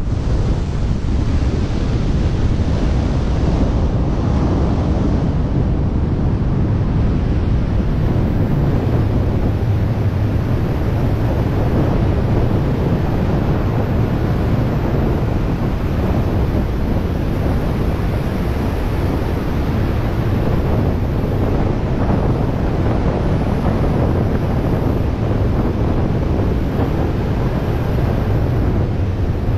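Wind noise from the airstream of a wingsuit flight blasting over a body-mounted camera's microphone: a loud, steady rushing, heaviest in the low end.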